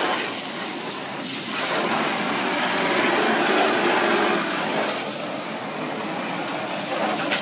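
Narrow water jet from a hose nozzle spraying into a black plastic preformed pond liner, a steady splashing hiss as it hits the pooled water and the liner's wall.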